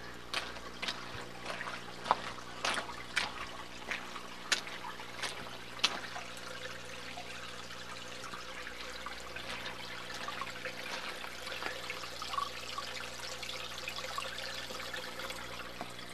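Water trickling from a seep among rocks and plants. In the first six seconds a dozen or so sharp clicks and snaps stand out above the trickle, which then runs on steadily.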